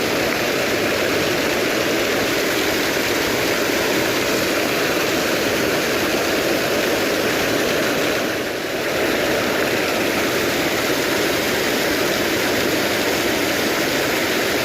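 Steady rushing of river water, likely flowing over the dam's weir, a continuous even hiss that dips briefly a little past halfway.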